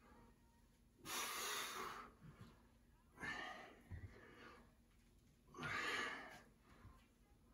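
Heavy breathing of a person exercising under a kettlebell load: three noisy breaths, each lasting about half a second to a second, coming roughly every two and a half seconds.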